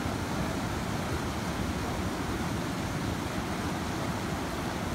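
Fast mountain river rushing over rocks: a steady, even roar of white water.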